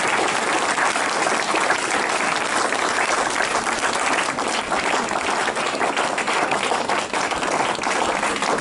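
Small audience applauding, many hands clapping in a steady patter.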